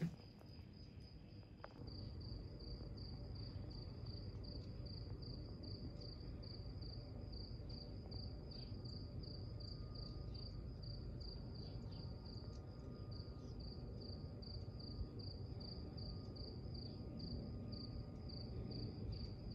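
Crickets chirping, a faint high pulsed chirp repeating evenly, with a low steady rumble underneath.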